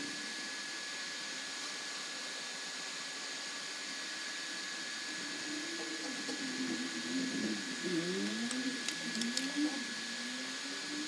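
Steady hiss with a faint high whine throughout. From about halfway, a voice hums a wavering, sliding tune, with a few faint clicks near the end.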